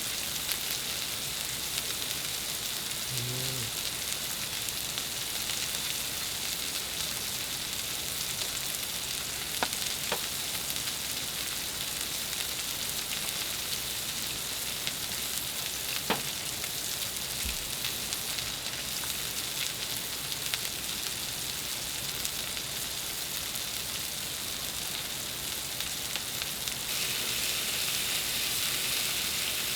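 Food sizzling as it fries, a steady hiss, with a few sharp ticks near the middle.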